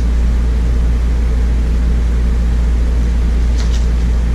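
Steady low mechanical drone of a running machine, with a brief light rustle of a book's pages being handled about three and a half seconds in.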